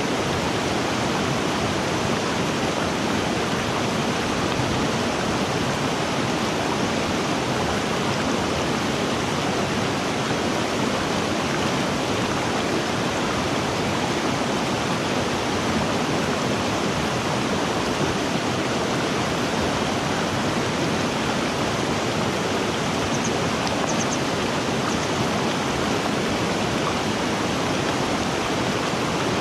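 River water rushing in a steady, unbroken wash.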